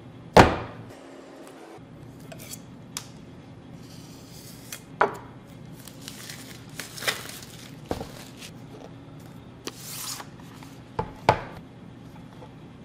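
A long cardboard knife box handled on a wooden cutting board: one hard slap as it is set down about half a second in, then scattered knocks, taps and brief rubbing of cardboard as it is slid and turned.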